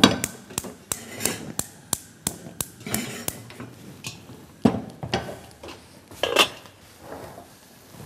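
Gas hob's electric spark igniter clicking about three times a second for some three seconds while a burner is being lit, followed by two louder knocks.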